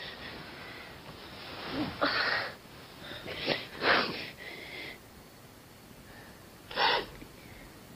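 A woman sobbing with her face in her hand: a few sharp, gasping breaths and sniffs with quieter crying between them.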